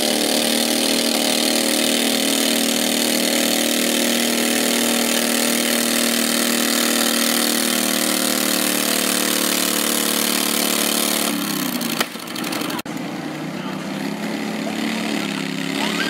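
Garden pulling tractor engine running hard at steady high revs while pulling the sled, then the revs fall off about three-quarters of the way through. A sharp snap follows, and the engine carries on lower and quieter.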